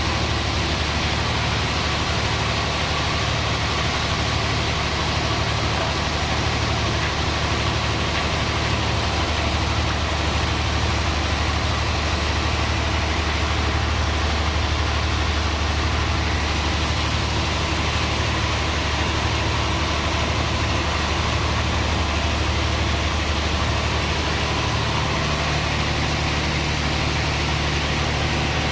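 Band sawmill running steadily: a constant low machine hum under an even hiss, with no break or change.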